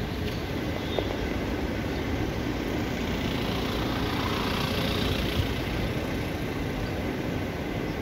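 Steady city street background noise: a low traffic rumble and hum, swelling slightly in the middle.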